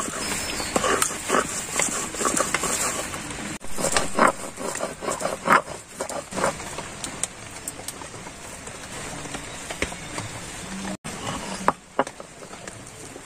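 Stone roller (nora) pushed back and forth over grated coconut on a flat stone grinding slab (shil), grinding it to a paste: irregular stone-on-stone scraping strokes with small knocks, busier in the first half and softer later.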